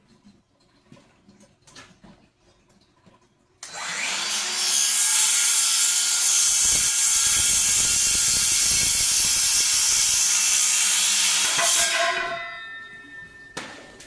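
A power saw cutting through a wooden handrail: it starts suddenly about three and a half seconds in, runs loud and steady for about eight seconds, then winds down near the end.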